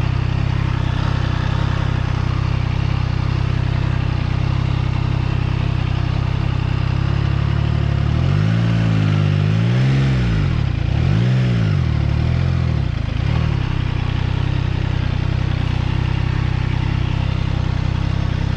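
Triumph Trident 660 inline three-cylinder engine idling steadily. Partway through, the throttle is blipped a few times, so the engine revs up and falls back to idle, then it settles to a steady idle again.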